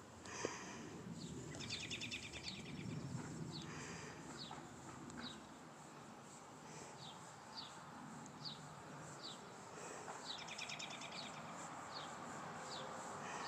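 Small birds calling faintly: a series of short, falling chirps about one a second, with two brief, fast trills, one about two seconds in and one about ten seconds in.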